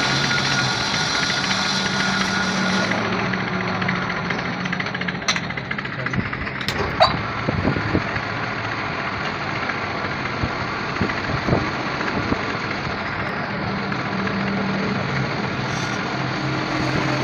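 An engine running steadily at idle, with a few sharp metallic clicks and knocks.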